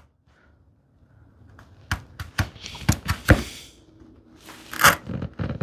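A sharp chisel paring wood by hand, shaving into a curved groove: a series of short scraping cuts and clicks that begin about a second in.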